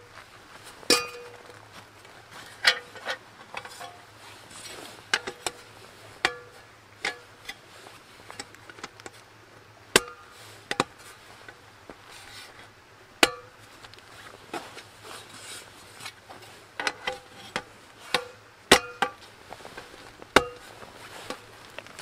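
Folding roll-top camping table being assembled: its slatted top and metal frame poles clack and clink together in irregular sharp knocks, one every second or two, several with a short metallic ring.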